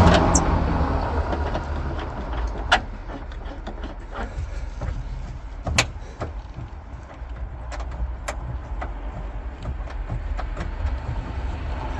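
Scattered sharp metallic clicks and knocks, a few seconds apart, from handling seat belt anchor nuts and hand tools, over a steady low rumble.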